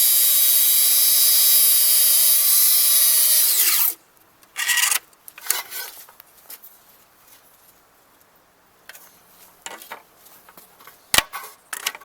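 Track saw running through a sycamore slab, then switched off: the motor's whine falls and winds down just under four seconds in. Afterwards there are only scattered knocks and handling clicks.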